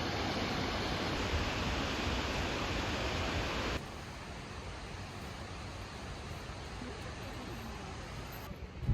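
Steady rushing outdoor noise, like wind on the microphone, that drops abruptly to a quieter hiss about four seconds in.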